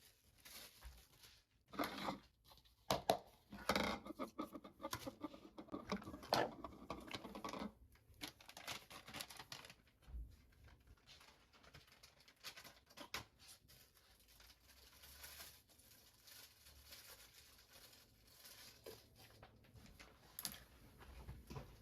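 Small objects being handled and moved about on a surface: rustling, taps and clicks, busiest for the first several seconds and then sparser.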